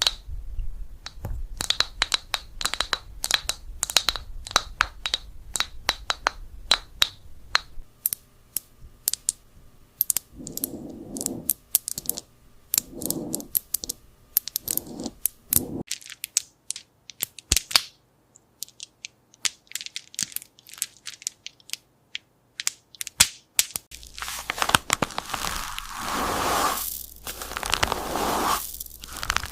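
Objects rubbed, tapped and scratched against a microphone up close: a run of sharp clicks and taps with a faint ringing tone, a few slow rubbing swells, then scattered clicks, and near the end a dense scratchy rustling.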